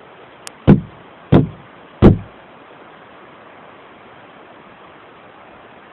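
Three loud, deep pops in quick succession, roughly two-thirds of a second apart, each dying away in a low boom. The recordist takes them for the popping sounds of a bigfoot.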